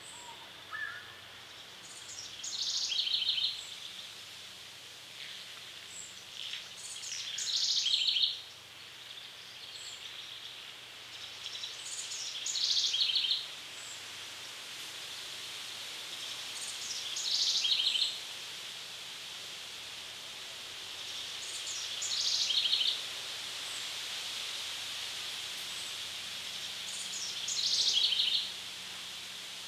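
A songbird in woodland sings the same short, high phrase six times, about every five seconds. Each phrase ends in a quick trill. A steady high-pitched hiss of background noise runs underneath.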